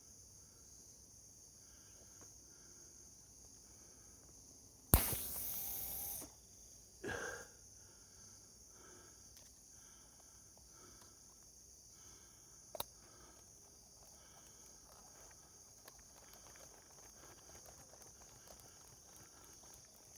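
Crickets chirping in a steady high buzz. About five seconds in, a sudden loud rushing noise lasts a little over a second, a shorter one follows two seconds later, and there is a single sharp click near the middle.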